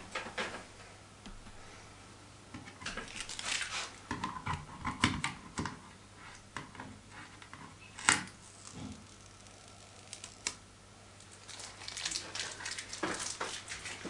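Thin protective plastic film being peeled off a smoke and carbon monoxide alarm's housing: two spells of crackling and rustling, with one sharp click about eight seconds in.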